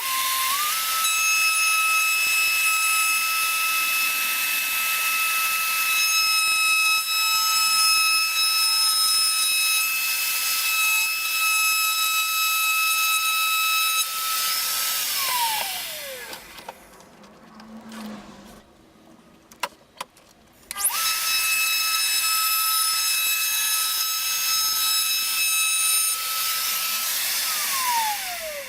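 Electric router spinning up to a steady high whine and cutting a shallow first pass of a mitre-guide slot in MDF, then switched off about 14 seconds in, its whine falling as it winds down. After a pause with a few clicks it is started again about 21 seconds in for another run and winds down near the end.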